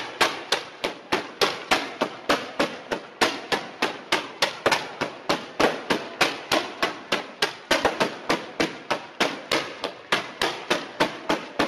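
Fireworks going off in a fast, even string of sharp bangs, about four a second, each with a short decay.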